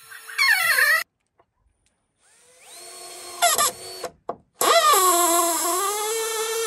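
Power drill running in three bursts. The first is short and winds down in pitch. The second, about two seconds in, spins up and holds steady. The longest, from about halfway, dips in pitch and recovers.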